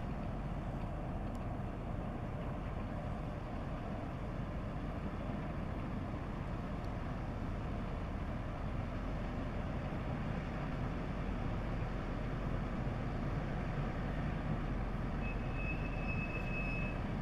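Diesel engine of the inland cargo ship Eemspoort running steadily, a deep even rumble as the ship passes at low speed. A thin high tone sounds for about two seconds near the end.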